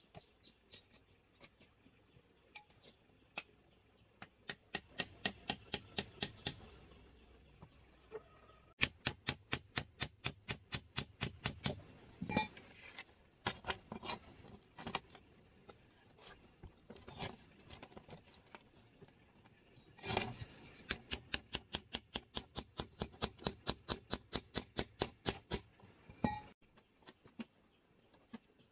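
A hammer tapping on a bamboo frame in quick runs of light, sharp strikes, about four or five a second, with short pauses between runs.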